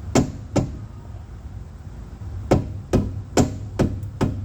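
Hammer blows on the front suspension, seven sharp strikes: two near the start, then after a pause five more at about two a second, driving the new control arm's ball joint into the hub.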